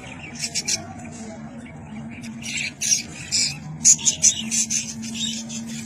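A flock of budgerigars chattering and squawking: many short, sharp, high calls overlapping, busiest a few seconds in. A steady low hum runs underneath.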